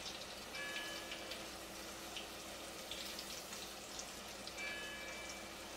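Battered onion pieces frying in a pot of hot vegetable oil, a faint steady crackle and sizzle. Two soft bell strikes ring through it about four seconds apart, each ringing briefly over a faint lingering hum, from a church bell next door.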